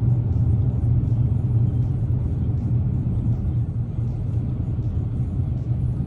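Steady low rumble of engine and tyre noise inside the cabin of a 2018 Dodge Challenger with all-wheel drive, cruising at highway speed.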